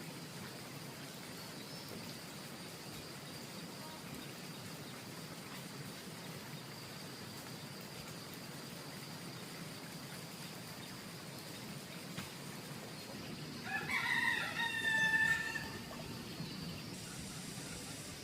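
A rooster crows once near the end, one call of about two seconds, over a steady faint background hiss.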